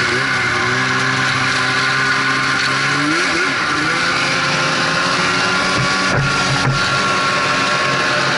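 Snowmobile engine running steadily while the sled travels along the trail, under a constant rushing noise. The engine pitch dips and rises briefly about three seconds in, then holds steady again.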